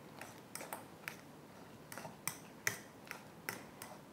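A fork mashing soft camembert and butter in a metal bowl, its tines clicking sharply against the bowl about twice a second at uneven intervals.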